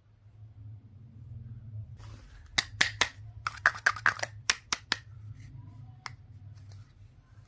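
A quick run of about a dozen sharp clicks and taps over two or three seconds, as small hard objects are handled, over a steady low hum.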